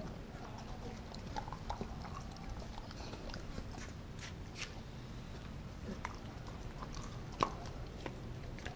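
Mixed-breed dog eating raw food, chewing and licking in a stainless steel bowl and then biting into a frozen turkey steak. It comes as a scatter of small clicks and crunches, with one sharper knock about seven seconds in.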